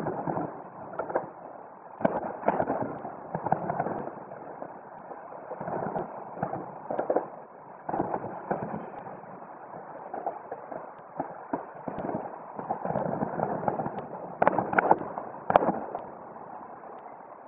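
Distant fireworks display: a continuous run of overlapping booms and crackles with rolling echoes, and a cluster of sharper cracks near the end.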